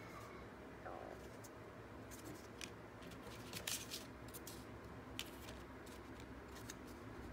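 Paper cards and small foil sample sachets handled on a tabletop: scattered faint rustles and light taps over a low steady room hum.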